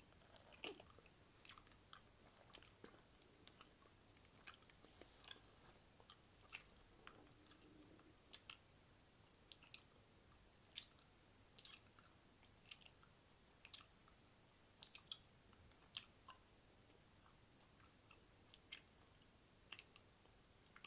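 Faint, close-miked wet mouth sounds: irregular soft clicks and smacks of the lips and tongue, about one or two a second.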